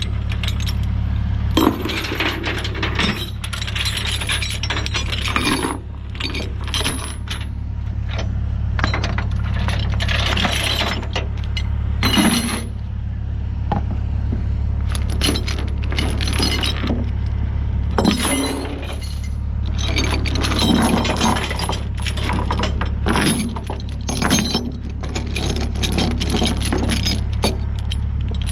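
Steel transport chains and load binders clanking and rattling as they are handled, in irregular bursts of metal clinks, over a steady low hum.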